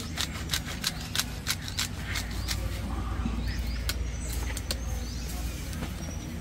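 Hand-twisted bottled spice grinder being worked: a quick run of sharp clicks through the first two seconds, thinning out after. A low steady rumble sits underneath.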